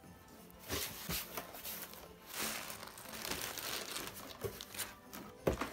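Cardboard box flaps being folded open and a clear plastic packaging bag crinkling in irregular bursts as it is lifted out, with a sharp knock near the end.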